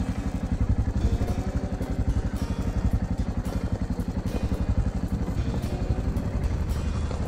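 Adventure motorcycle engine running at low, steady revs, its exhaust a fast, even pulse, as the bike rolls along a loose, rocky mountain track.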